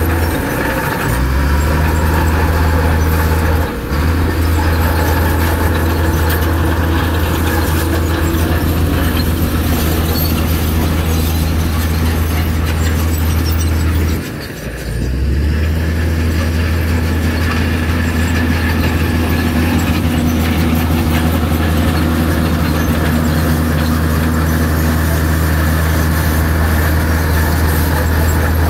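Heavy diesel engine of earthmoving machinery running steadily under load, with brief dips in its note about four seconds in and again near the halfway point.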